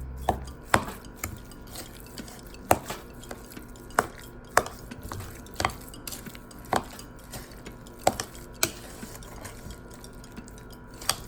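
A utensil clinking against a mixing bowl while a thick ground-chicken mixture is stirred: sharp, irregular knocks about once a second.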